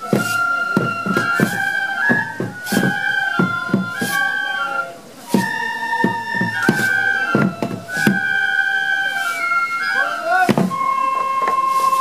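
Shishimai lion-dance music: a Japanese transverse flute plays a held, stepping melody over frequent sharp beats from the lion dancers' waist drums.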